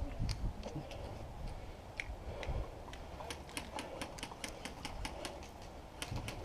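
Airsoft guns firing in quick, irregular runs of sharp clicking snaps.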